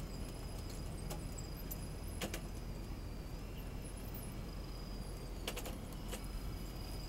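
1/12-scale radio-controlled Caterpillar 973B track loader model driving over loose soil: a steady high electric-motor whine with scattered clicks and clinks from its running gear and tracks.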